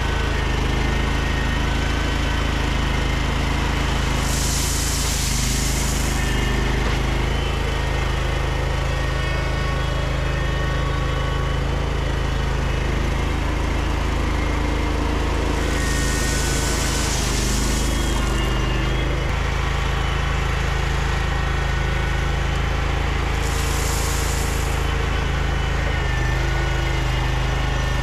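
An engine running steadily, with three brief hissing rushes about four, sixteen and twenty-four seconds in.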